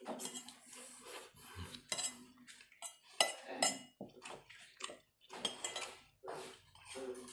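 Metal spoon clinking and scraping against a plate in irregular strokes while food is scooped up.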